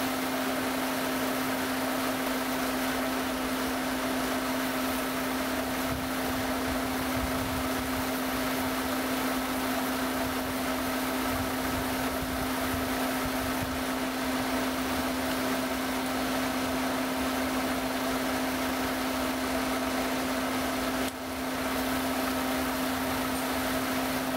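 Toyota 1SZ-FE 1.0-litre four-cylinder engine idling with a steady hum while its idle speed is adjusted. It is misfiring slightly because a sensor connector on the air filter box is left unplugged. Its sound dips briefly near the end.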